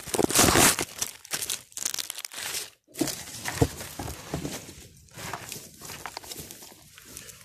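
Close crackling and rustling handling noise as the phone is moved and set down among dry twigs and bark, loud for the first second, then fading to scattered faint crackles of dry debris.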